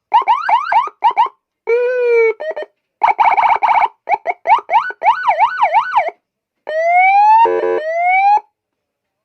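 200-watt electronic police-escort siren sounding through a Federal Signal speaker and stepping through its tones: rapid rising chirps, a short steady horn note, a fast warble, a yelp sweeping up and down, then a slow rising wail with a brief buzzy horn blast breaking in.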